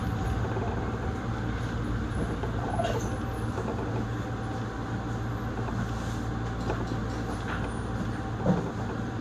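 Nagoya Higashiyama Line subway train running slowly, heard from inside the car: a steady low running hum with a faint steady tone above it, and a light knock about eight and a half seconds in.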